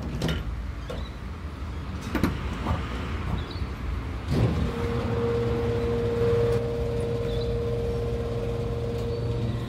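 Motor vehicle running with a low rumble and a few clicks and knocks; about four seconds in, a steady hum sets in and holds.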